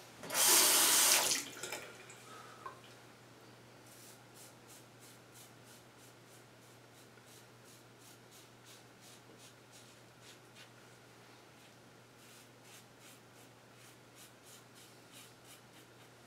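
A tap runs briefly at the start, rinsing the razor, then a Gillette Black Beauty adjustable double-edge safety razor with a Treet blade scrapes through lathered stubble on the neck in faint, short strokes that come in quick runs.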